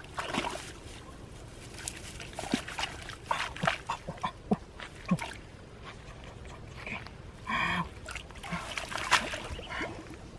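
Hands groping in shallow muddy water among dense pond weeds: irregular small splashes, sloshes and rustling stems. A short animal call sounds a little past halfway.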